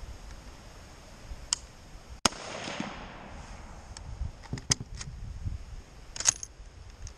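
A single shot from a Mosin Nagant rifle in 7.62x54R about two seconds in, with a long echo trailing after it. A few sharp clicks and knocks follow.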